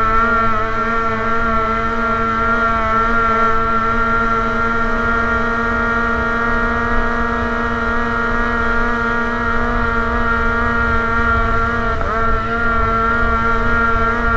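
Racing motorboat's engine running at steady high speed, with a low rushing noise underneath. About twelve seconds in, its pitch dips for a moment and comes straight back.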